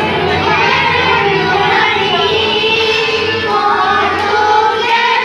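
A group of young children singing a song together in unison, holding and gliding between sustained notes.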